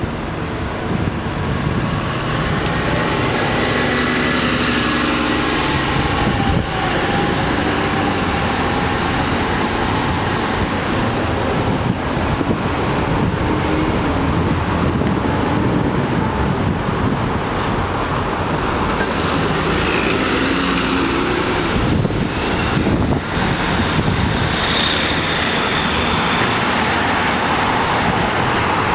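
City street traffic: an Orion VII diesel-electric hybrid transit bus with a Cummins ISB engine and BAE HybriDrive moving off close by, followed by steady passing cars, vans and buses. A few brief high whines come about two-thirds of the way in and again near the end.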